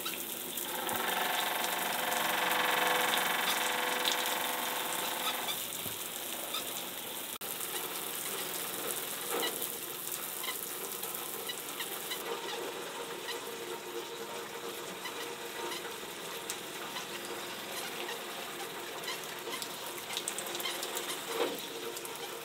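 Water spraying from a handheld shower head, a steady hiss, louder for the first five seconds or so.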